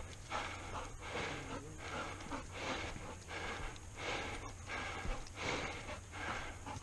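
Heavy, rhythmic breathing of a hiker climbing steep stone steps, a little more than one breath a second.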